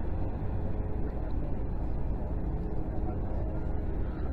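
Steady low outdoor rumble with an even hiss over it, no single event standing out.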